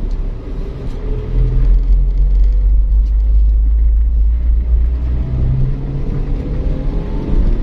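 Car being driven slowly, heard from inside the cabin: a steady low rumble of engine and tyres on a concrete lane, with the engine note climbing slightly near the end.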